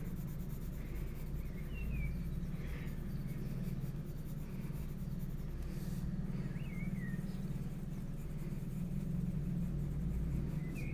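Faber-Castell Polychromos coloured pencil scratching on paper while shading, over a steady low hum. A few faint falling chirps sound three times.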